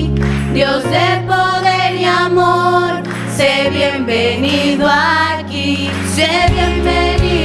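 Live worship music: a group of women singing together at microphones over sustained low bass notes that change every few seconds.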